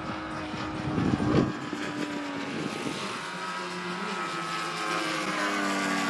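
Propeller engines of several radio-controlled model aircraft flying in formation, a steady drone made of several pitches at once. Near the end one model passes low and its pitch slides down as it goes by. A brief low rumble about a second in is the loudest moment.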